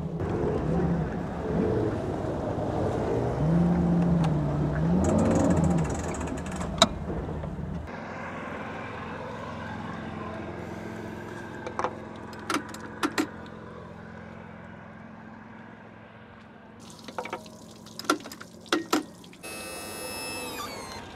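A bass boat's outboard motor runs with a steady low rumble for about eight seconds, then stops. After that comes a quieter background with a few sharp metallic clicks and clanks as the outboard's lower unit on the trailered boat is worked on. Near the end a steady pitched tone comes in and cuts off suddenly.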